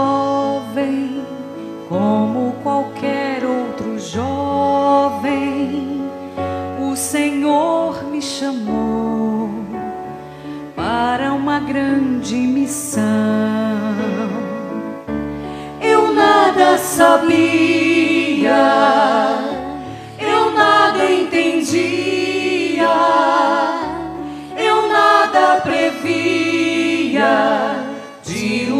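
Background music: a sung song with instrumental accompaniment. It gets louder from about halfway, where the voice carries a strong vibrato.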